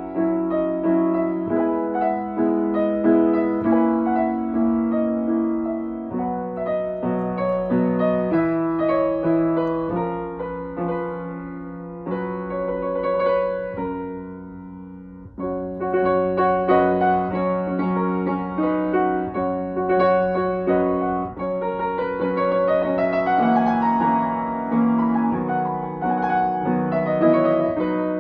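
Steinway & Sons grand piano played by hand: a slow piece of held chords under a melody line. The playing thins out and softens around the middle, then comes back fuller.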